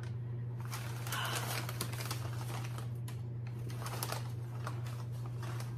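Brown wrapping paper crinkling and rustling in irregular crackles as a mailed plant is unwrapped by hand, over a steady low hum.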